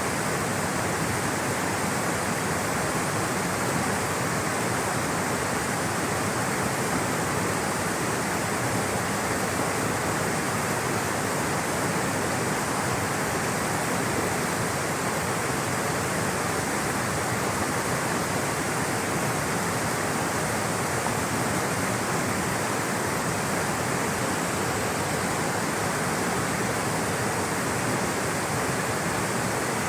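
Rushing water flowing in a steady, unbroken hiss: a stream or small waterfall.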